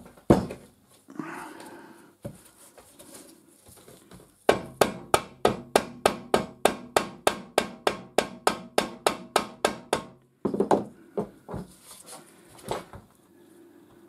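Hammer tapping on a metal part of a W.R. Fox No.3B mitre trimmer: a rapid, even run of about four blows a second for several seconds, each with a short ringing tone, and a few single knocks before and after. The taps are meant to drive apart a joint located by alignment pins, which does not shift.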